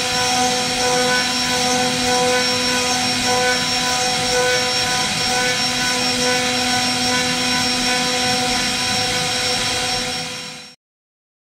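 CNC router spindle running with its end mill cutting wood: a steady high whine of several constant tones over the hiss of the cut. The sound cuts off abruptly near the end.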